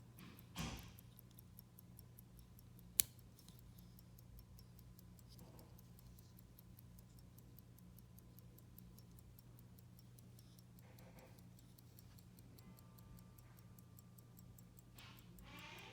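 Faint, rapid, even ticking of a 1940s Girard-Perregaux 7-jewel mechanical pocket watch, with one sharp click about three seconds in and a low steady hum underneath.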